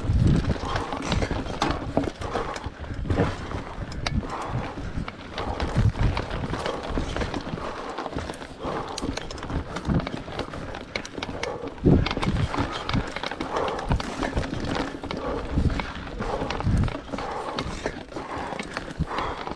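Mountain bike riding over a rough cross-country trail: tyres on dirt, rocks and roots, with the frame and parts clattering in irregular knocks and an occasional hard thump, the loudest about twelve seconds in.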